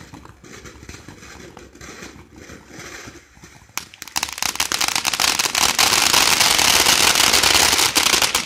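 Ground fountain firework spraying sparks with a hiss and light crackle, breaking into loud, dense crackling about halfway through that stops suddenly near the end.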